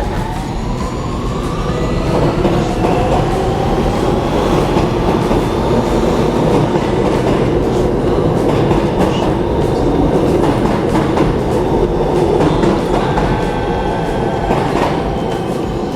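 New York City subway train running through the station, its motors whining upward in pitch over the first few seconds as it gathers speed, then a steady rumble of the train running on the rails.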